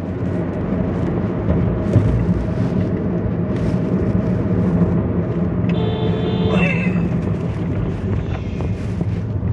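Honda hatchback's engine and tyre noise heard from inside the cabin while cruising on a highway, a steady low hum. About six seconds in, a brief higher-pitched tone sounds over it.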